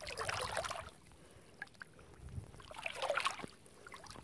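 Water splashing and sloshing in two short bursts, one at the start and another about three seconds in.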